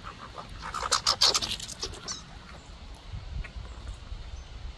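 American red squirrel chattering: a loud burst of rapid rattling notes, starting about half a second in and lasting about a second and a half.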